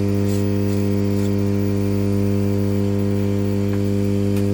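Steady electrical buzz from a hot-air soldering station running while it heats the board to melt the processor's solder. It is a low hum with a ladder of even overtones and does not change, with a faint click near the end.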